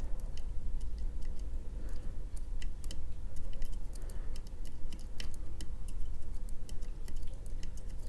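Light, irregular metallic clicks and ticks from a pick nudging the sliders of a Fontaine five-slider lock under wire tension. The clicks are the picker's feedback as individual sliders shift toward their set depth. A steady low hum runs underneath.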